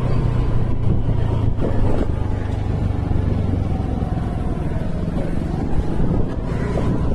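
A steady low engine drone with noise over it, holding even throughout.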